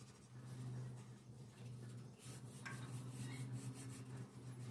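Faint scratchy rubbing of a flat paintbrush stroking paint onto a metal gate bar, over a steady low hum.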